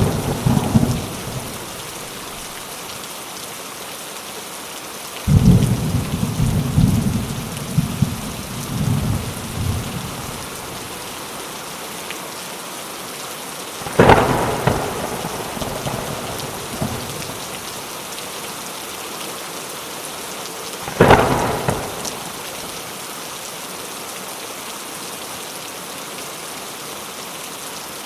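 Steady rain falling, with thunder: a low rolling rumble a few seconds in, then two sharp cracks of thunder, each trailing off into a short rumble, around the middle and later on.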